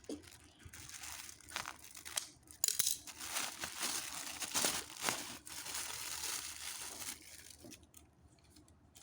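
Crinkling and tearing of a toy's packaging as it is opened, in irregular bursts that die down near the end.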